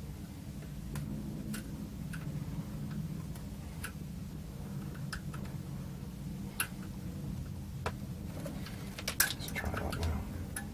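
Desoldering work on a stubborn IC's pins on a circuit board: light, irregular clicks and taps from the tool over a steady low hum, with a brief cluster of clatter near the end.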